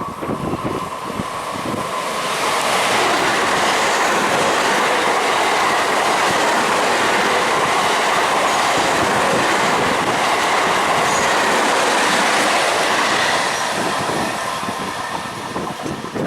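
An Indian Railways train passing close by with its wheels clattering along the rails. The sound builds over about two seconds, stays loud and steady for about ten seconds, then fades near the end.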